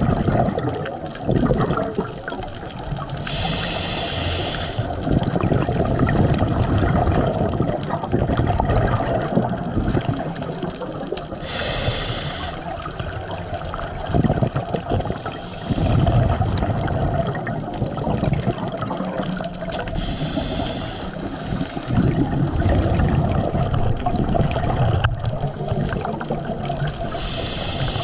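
Scuba diver breathing through a regulator underwater: a short hissing inhale about every eight seconds, with exhaled bubbles rumbling and gurgling in between.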